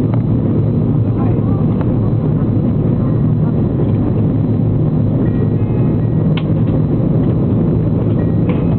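Steady, loud drone of jet engines and airflow inside a jet airliner's cabin in flight.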